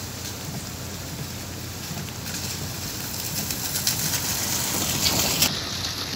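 Rain falling: a steady hiss with scattered drops tapping. The highest part of the hiss cuts off abruptly near the end.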